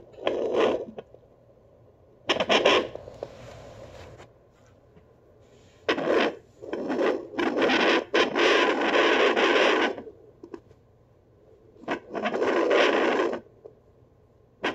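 Fetal doppler speaker giving out scratchy scraping and rubbing noise as its probe is slid over a pregnant dog's furry belly. The noise comes in irregular bursts of half a second to two seconds, the longest about eight seconds in.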